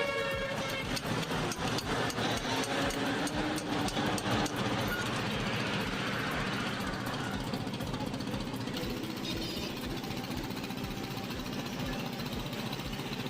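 A truck engine running, with sharp metallic knocks and clanks over the first few seconds.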